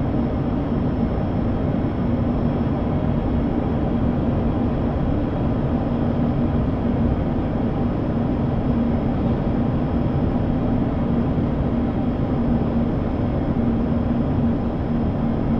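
Steady drone of the ATR 72-600's twin turboprop engines and propellers at approach power, mixed with airflow noise, heard inside the cockpit. A constant low hum tone runs through it, unchanging.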